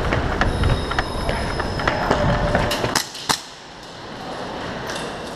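Rumble of movement and footsteps on a body-worn camera as an airsoft player runs, with scattered sharp clicks. About three seconds in comes a cluster of sharp snaps, and the rumble drops away.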